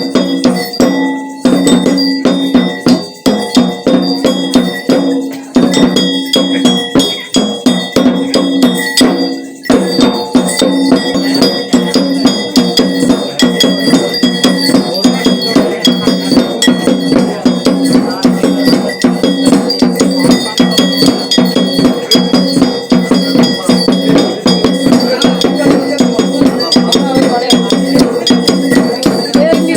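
Metal bells rung rapidly and without let-up, a dense clatter of strikes over a steady ringing, with short breaks about one and a half, five and a half and nine and a half seconds in.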